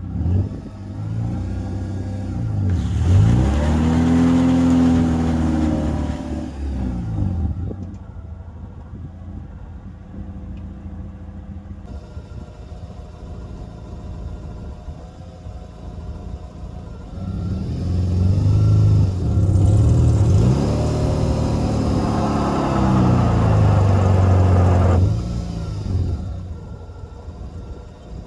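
Car engine idling and revved up and back down twice, each rev a slow rise and fall in pitch lasting several seconds, settling back to idle between them.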